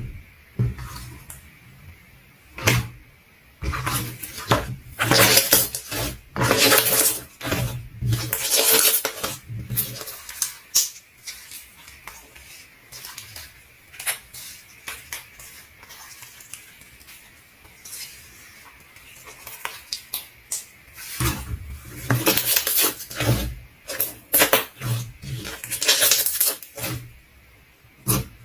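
Slime being squished and poked by hand: irregular wet clicks, pops and crackles. They come in dense bursts, thinning to scattered clicks through the middle stretch.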